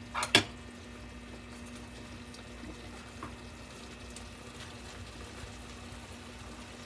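Two sharp clinks against a cooking pot near the start, then a steady low hiss with a faint hum, from the cooked eggplant dish simmering.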